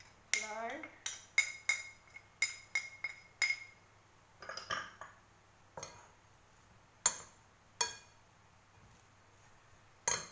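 A metal utensil clinking against a glass bowl while stirring chopped cabbage, carrot and onion with flour: a quick run of ringing taps over the first few seconds, then scattered single clinks. A brief word of speech near the start.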